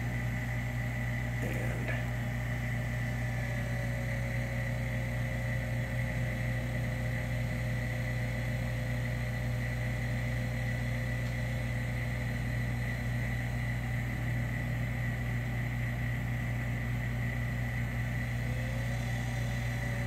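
1985 Jaguar XJS climate-control servo motor running while a momentary switch is held, driving the system from heat into cool mode. Its faint whine sags slightly and then rises near the end, over a steady electrical hum, with a single click about 1.5 seconds in.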